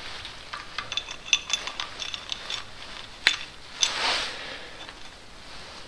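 Steel timing chain of a Mercedes M113 V8 clicking and rattling link against link as it is handled and laid over the sprockets, with one sharper click about three seconds in and a short swish about a second later.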